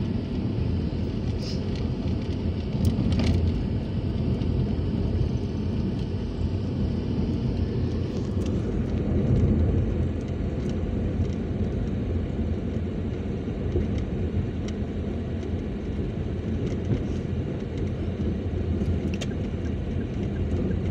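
Steady low rumble of a car on the move, heard from inside the cabin: engine and tyre noise on the road, swelling slightly about three and nine seconds in.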